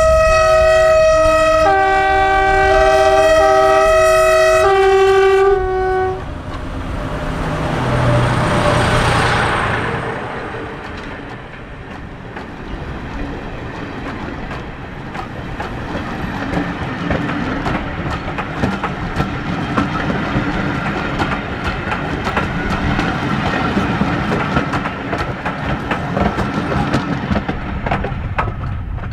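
A diesel triple-header of a Barclay 0-4-0DM shunter, a Ruston LSSH 0-6-0DH shunter and a Class 107 DMU climbing a bank: several horns sound together in shifting chords for about five seconds, then the engines swell to a peak about eight to ten seconds in as they pass. The coaches follow with wheels clicking steadily over rail joints as the train draws away.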